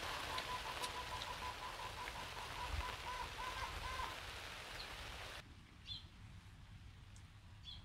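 Heavy rain pattering on a tarp shelter as a dense steady hiss. It cuts off suddenly about five seconds in, leaving a much quieter background with a few faint high chirps.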